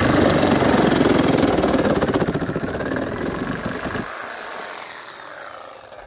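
Reciprocating saw with a Lenox wood blade running at speed through green SDR 35 PVC drain pipe, a steady rapid stroking buzz. Low rasping of the cut drops out about four seconds in as the blade breaks through the pipe, and the saw's sound fades over the last two seconds.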